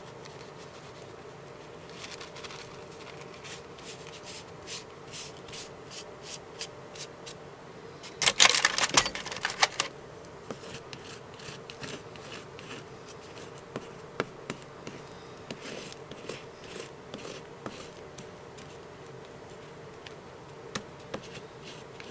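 Thin paper napkin rustling and crackling as it is laid onto glue-coated paper and pressed down with fingertips, with a louder flurry of crinkling about eight seconds in. A faint steady hum underneath.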